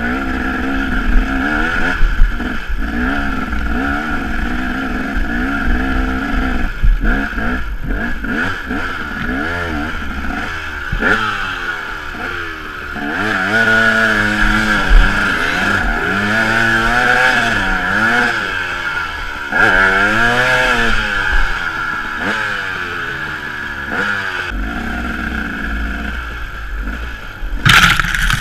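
Enduro dirt bike engine revving up and down repeatedly under throttle while climbing through rough ground, with steady wind and brush noise. A sudden loud clatter comes near the end.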